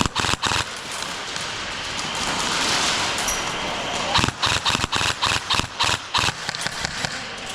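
Airsoft gunfire: a few sharp shots right at the start, then a rapid string of shots, about five a second, through the second half.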